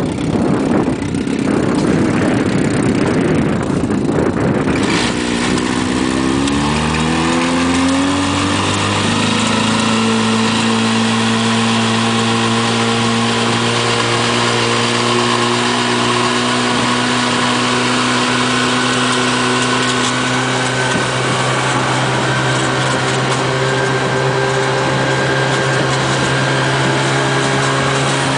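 Vintage Evinrude Fleetwin 7.5 hp twin-cylinder two-stroke outboard running. It runs low and rough for about five seconds, then its pitch climbs over about four seconds as the throttle is opened. It then holds a steady higher pitch, running at speed.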